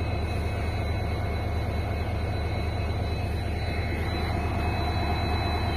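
WDG4 (EMD GT46MAC) diesel locomotive's 16-cylinder two-stroke engine running steadily while the locomotive stands. It makes a low rumble with a steady high whine above it.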